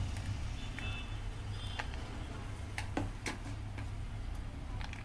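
A few light clicks of a serving spoon against a plate and a roasted papad as chopped vegetable topping is spooned on, over a steady low hum.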